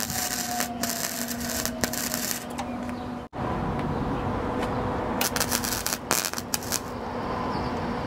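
Electric arc welding: the arc crackles and spits while the welder hums steadily. After a sudden break about a third of the way in, the welder's hum goes on with scattered sharp crackles as the arc is struck only briefly.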